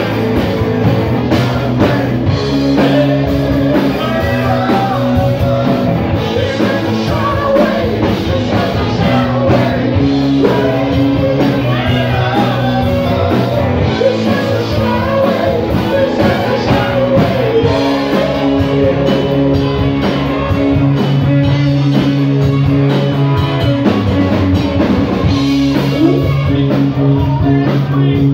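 Live rock band playing: electric guitars, bass guitar, drum kit and saxophone, loud and steady throughout.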